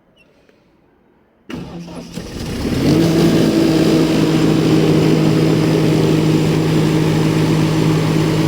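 Lincoln Vantage 500 welder generator's Perkins turbo diesel engine starting about a second and a half in, then picking up speed and settling into a steady run.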